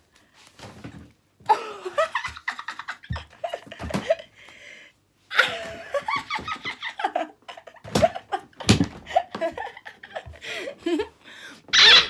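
A young woman laughing in repeated fits, with short breaks between them and a loud outburst just before the end.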